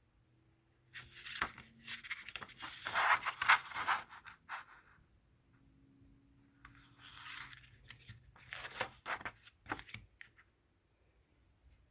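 CD packaging being torn open and handled: scratchy tearing and crinkling in three bursts, with sharp clicks among them.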